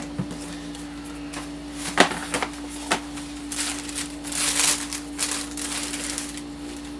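Handling of sneakers and their box: a sharp knock about two seconds in and another a second later, then about two seconds of rustling over a steady low hum.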